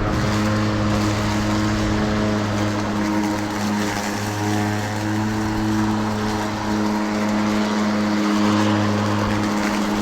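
Mowrator 2WD remote-control lawnmower running while mowing a slope, its spinning blade and motors giving a steady hum that wavers slightly as it moves.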